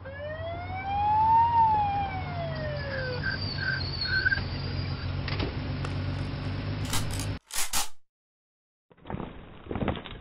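A siren wails once, rising and then falling in pitch over about three seconds, over a steady low hum. The sound cuts off sharply about halfway through. After a brief burst and a second of silence, a run of sharp knocks starts near the end.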